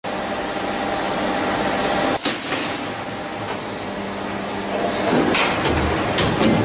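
ISB-800 blow moulding machine running through its cycle on a six-cavity polycarbonate G45 bulb-shell mould: a steady machine hum, a clunk with a short burst of hissing air about two seconds in, and several metallic clicks and knocks near the end.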